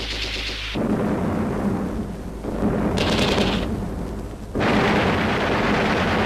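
Battle sound effects: explosions and gunfire rumbling on, with a sudden louder blast about four and a half seconds in whose roar carries on.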